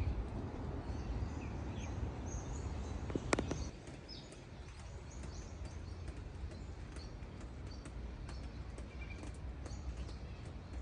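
Garden ambience: small birds chirping here and there over a steady low rumble that eases off a few seconds in, with one sharp click about three seconds in.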